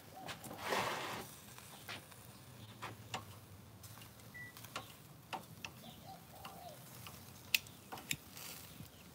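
Metal barbecue tongs clicking and clacking irregularly against the grill and the pork slices as the meat is turned, with a short louder rush of noise about a second in.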